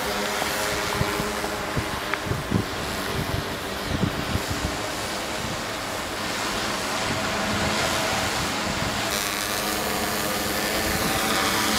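Multirotor drone's propellers humming, a steady hum of several tones that shifts in pitch near the end. Wind buffets the microphone with low thumps in the first few seconds.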